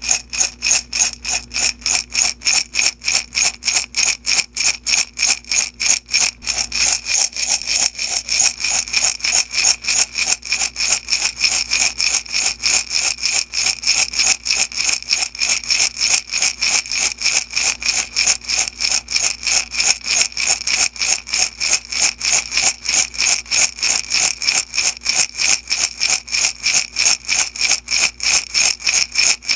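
Small beads shaken steadily in a glass jar, a rapid, even rhythm of rattling strokes, several a second.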